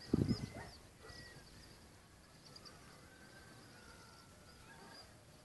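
Faint, scattered high-pitched chirping from small wild creatures over a quiet open-air background. A short low rumble on the microphone comes in the first half-second and is the loudest thing.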